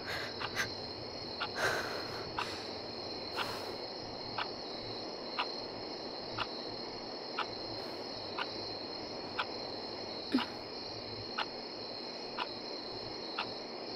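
Steady night-time chirring of crickets, with a clock ticking once a second.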